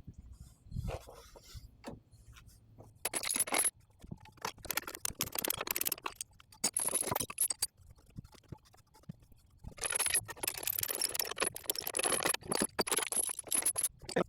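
Bouts of scraping and rattling made of many short sharp strokes, one starting about three seconds in and a longer one near the end.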